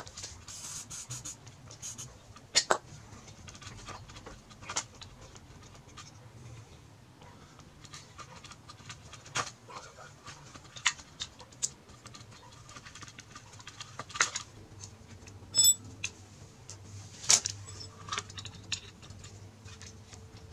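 Hands and tools working on a dismantled 26cc two-stroke weed eater engine: irregular clicks, clinks and knocks of small metal and plastic parts being handled and moved, with a few sharper knocks among lighter scraping.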